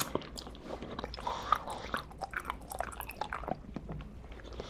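Close-miked chewing of a tapioca pearl: quiet mouth sounds with many small clicks. The pearl has almost no chewiness left, so the chewing is soft.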